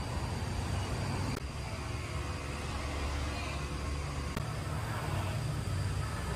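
Steady low rumble of outdoor background noise, with two faint clicks.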